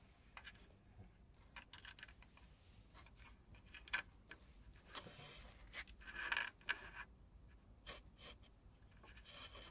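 Faint, scattered clicks and light scraping of metal tweezers and fingers against the overlocker's looper and thread guides as thread is drawn through by hand, with a brief rustle around six seconds in.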